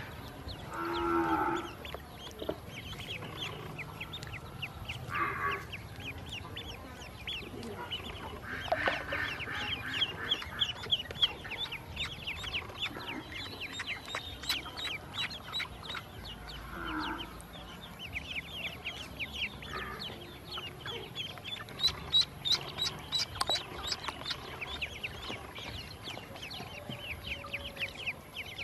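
Ducklings peeping constantly, a dense stream of quick, high, downward-sliding peeps from many birds at once. A few lower, longer calls from a larger animal break in now and then, about five times.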